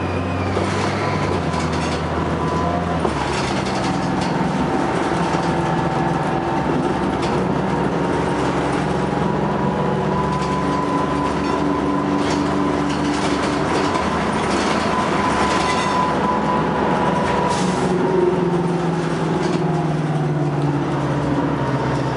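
Inside a 1997 Neoplan AN440 CNG transit bus under way: the natural-gas engine and drivetrain running, the engine note changing pitch several times as the bus changes speed, over road noise and a steady high whine. Short rattles and knocks from the body come now and then.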